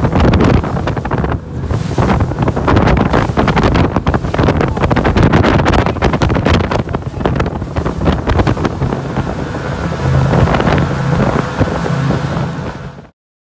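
Twin outboard motors running at speed on a SeaVee 340z center-console boat, with heavy wind buffeting the microphone and spray rushing off the hull; a steady low engine hum comes through more clearly later on. The sound cuts off abruptly near the end.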